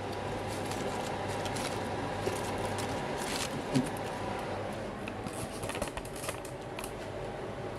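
Light rustling, clicks and small knocks of cookware and food being handled in a kitchen, over a steady hum; one sharper knock nearly four seconds in.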